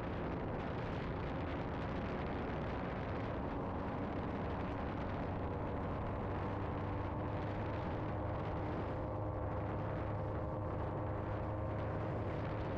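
Paramotor engine and propeller running steadily with a low drone, mixed with wind rush, heard from the pilot's harness in flight.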